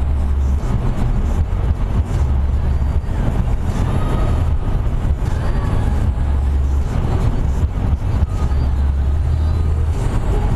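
Steady road noise inside a moving car's cabin, a deep, continuous rumble of tyres and engine, driving through a highway tunnel.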